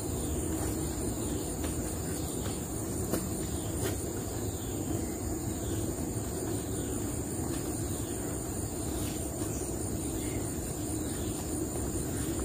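Steady forest ambience of insects chirring in high even bands, with short falling calls repeating about once a second and a low steady hum underneath. A few faint clicks come from hands handling the picked mushrooms and the leaf.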